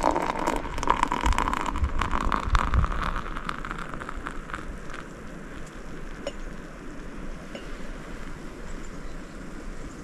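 Wind blowing and buffeting the microphone, with scattered clicks and rustling in the first few seconds; it eases to a steadier, quieter hiss after about four seconds.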